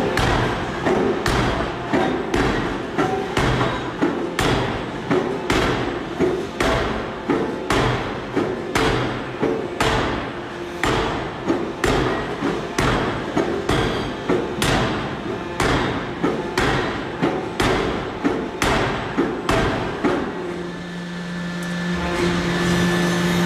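Power forging hammer striking a red-hot steel bar on its anvil die in steady repeated blows, about two a second, that stop about twenty seconds in.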